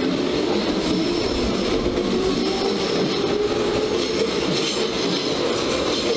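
Hamburg S-Bahn class 472/473 electric multiple unit running past along the platform: a steady noise of wheels on rails with some high squealing tones from the wheels.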